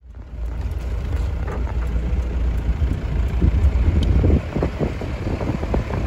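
Vehicle driving slowly over a rough, rutted dirt track, heard from inside the cabin: a steady low engine and road rumble with frequent knocks and rattles as it rides over the bumps.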